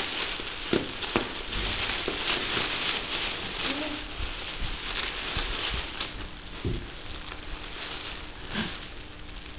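Gift wrapping and tissue paper rustling and crinkling steadily as a present is unwrapped by hand, with a brief small voice sound about four seconds in.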